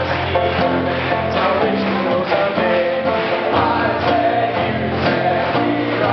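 Acoustic band playing a lively song: banjo and two acoustic guitars strummed together, with voices singing.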